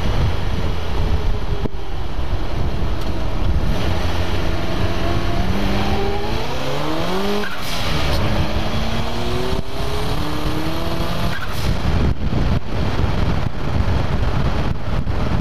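Turbocharged truck engine pulling hard through the gears, with steady wind rumble on the microphone. Its pitch climbs from about four seconds in, drops at a shift about halfway through with a brief burst of hiss, then climbs again to a second shift a few seconds later.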